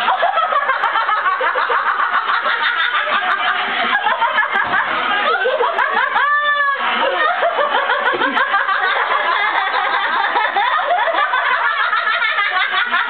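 Several people laughing hard and without a break, in quick pulsing giggles, with a brief high-pitched squeal about six seconds in.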